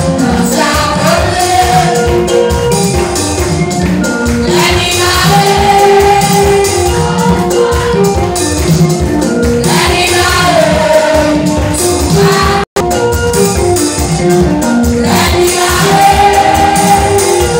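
Lively Haitian Pentecostal worship music: group singing over a fast, steady percussion beat. The sound cuts out for an instant about two-thirds of the way through.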